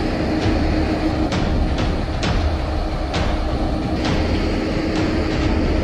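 Construction-site machinery noise: a steady low rumble with a faint hum, and scattered sharp knocks every second or so.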